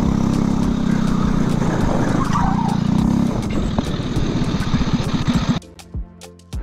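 Go-kart engine running at speed, heard from on board: steady for about three seconds, then breaking into a throbbing pulse. About five and a half seconds in it cuts off suddenly and music with a beat comes in.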